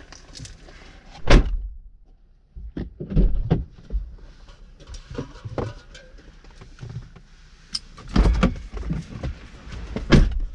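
Irregular knocks and heavy thumps over a low rumble, loudest about a second in and again around eight seconds in.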